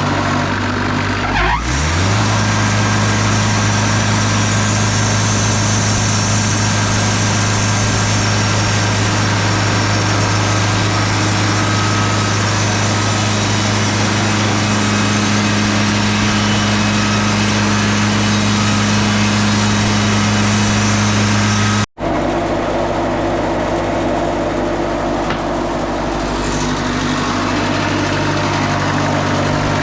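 Wood-Mizer LT40 Super Hydraulic bandsaw mill running under power: its engine revs up about a second and a half in, then holds a steady high speed as the mill saws. The sound cuts out for an instant about two-thirds of the way through, then carries on.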